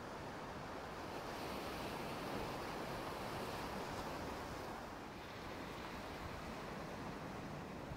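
Ocean surf washing on a rocky shore: a steady rush that swells over the first few seconds and eases off about halfway through.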